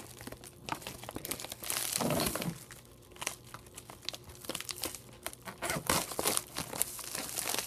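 Packaging crinkling and crackling in irregular bursts as it is worked open by hand, hard to open, with a louder rustle about two seconds in.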